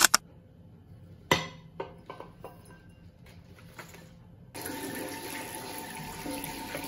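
A few light clicks and knocks against a ceramic sink, then a tap is turned on about four and a half seconds in and water runs steadily into the basin.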